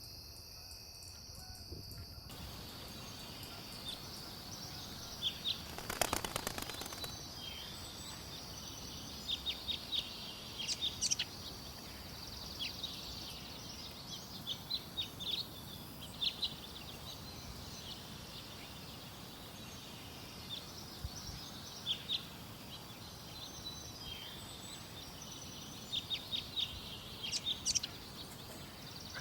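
Outdoor ambience of wild birds chirping in short scattered bursts over a steady high hiss. A brief, louder noise, the loudest moment, comes about six seconds in.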